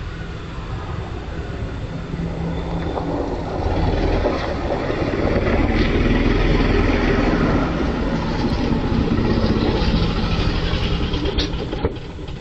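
Rumble and rushing noise of a passing vehicle, building to its loudest midway and then easing off.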